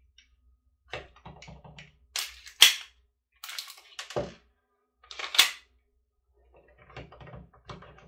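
Gas blowback airsoft pistol fired a few times: sharp cracks of the shots and the slide cycling, the loudest two just over two seconds in and another past five seconds, with clicks and clatter of the gun being handled in between.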